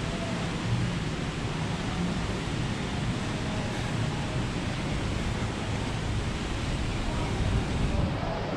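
Steady rushing wind noise on a cruise ship's open upper deck, with a faint low hum underneath.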